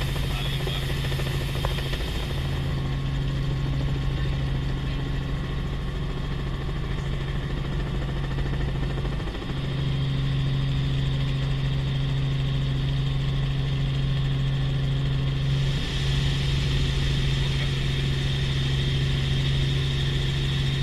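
Light helicopter's engine and rotor droning steadily in flight, heard from inside the cabin, holding one low pitch with a brief break about nine seconds in.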